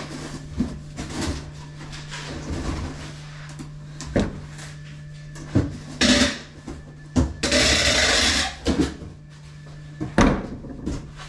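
Cardboard boxes being handled for packing: scattered knocks and rustles of cardboard, with a longer scraping rush about seven seconds in, over a steady low hum.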